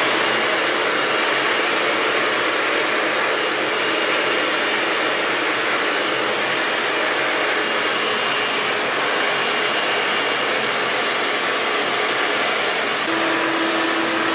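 Handheld hair dryer running steadily, blowing air onto hair at close range. A faint steady hum joins in near the end.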